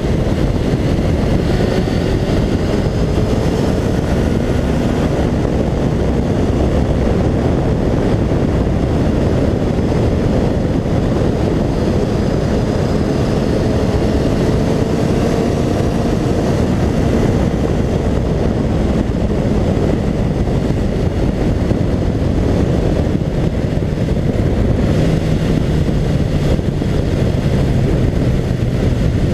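Honda CBR Fireblade's inline-four with an Akrapovic exhaust, ridden at speed and picked up by a camera mounted low by the front wheel. The sound is a steady, loud rush of wind and road noise, with the engine note gliding slowly up and down beneath it.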